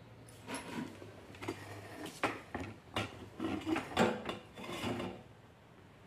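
Irregular clicks, knocks and light metallic clatter of a steel pot being handled on a gas stove, for about five seconds before it stops.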